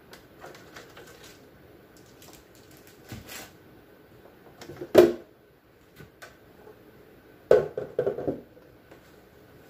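Condiment bottles and jars being handled and set down: scattered knocks and clatter, the loudest about five seconds in and a short cluster around seven and a half to eight seconds.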